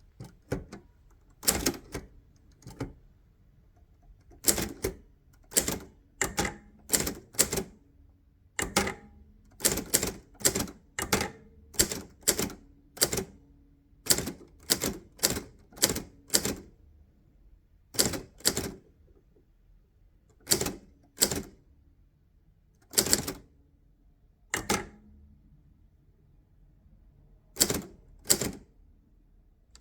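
1965 Hermes 3000 manual typewriter being typed on slowly: single sharp type-bar strikes at an uneven pace, with pauses of a second or two between some keystrokes.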